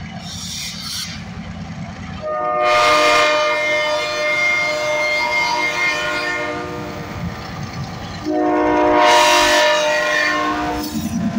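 Diesel freight locomotive sounding its multi-note air horn in two blasts, a long one of about five seconds and then a shorter one, over the steady rumble of its engine as it approaches.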